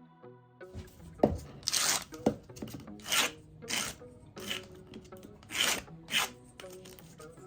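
Oak being worked down by hand with an abrasive, in repeated rasping strokes about every half-second, with a couple of sharp clicks early in the run, taking down rough spots so a repair piece fits more exactly. The tail of some plucked-string music ends just before the strokes begin.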